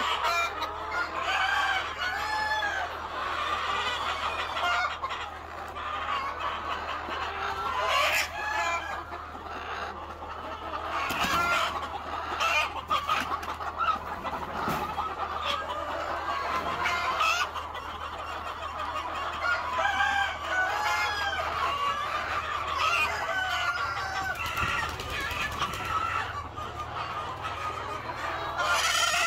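A flock of chickens clucking and cackling continuously in a chicken house, with a few sharp knocks scattered through.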